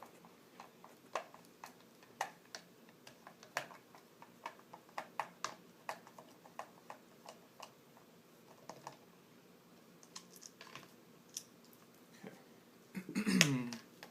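Irregular light clicks and taps of a screwdriver and hard plastic parts being handled while a NutriBullet blender base is taken apart. About a second before the end comes a louder clatter with a short falling squeak.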